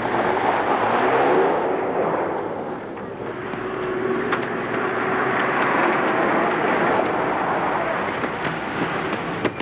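A car running by: steady engine and road noise, with the engine pitch rising and falling in the first couple of seconds.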